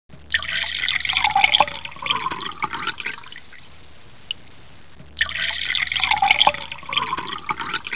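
Dripping, splashing water sound: a short clip of about three and a half seconds, played twice with a quieter gap between, the second time starting about five seconds in.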